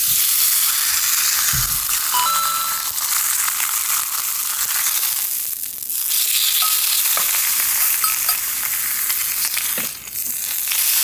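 Thin slices of hanwoo beef sizzling in a hot black skillet: a steady frying hiss that dips briefly twice as the slices are lifted and turned with metal tongs.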